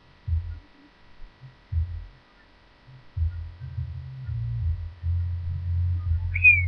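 Low muffled thumps, then a steady low rumble from about three seconds in: handling noise on a webcam microphone as a pillowcase is rubbed and pulled against it. A brief high squeak comes near the end.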